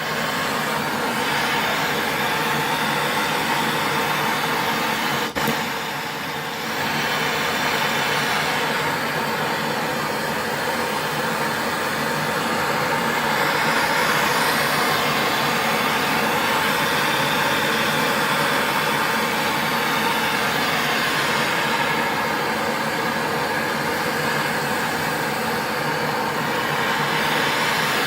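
MAP-gas hand torch burning steadily with a constant hiss, heating the ferrule to silver-solder temperature. A single short click about five seconds in.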